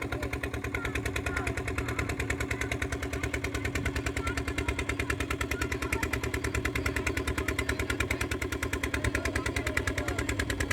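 Motorised river boat's engine running steadily with a fast, even beat.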